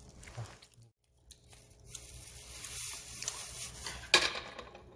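Small wood-burning camp stove, a double-combustion wood-gas stove, with its fire hissing steadily and one sharp crack about four seconds in.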